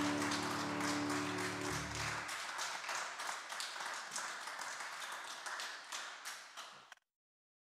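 Hand clapping and applause over the last of a held musical chord, which stops about two seconds in. The clapping carries on on its own, thinning out, and the sound cuts off abruptly about seven seconds in.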